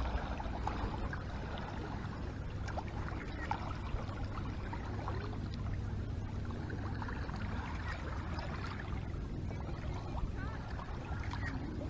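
Gentle water lapping at a gravel lakeshore, a steady wash with scattered faint ticks and crackles.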